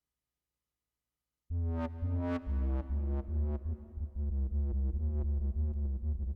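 Silence, then about a second and a half in an electronic track from a hardware MPC sampler and synthesizer setup starts abruptly: a heavy synth bass under repeating pitched synth notes.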